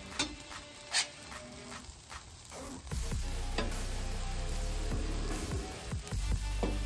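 Birria tacos sizzling on a hot flat-top griddle while metal spatulas scrape and tap the steel surface, folding and moving them; two sharp metal clicks come in the first second.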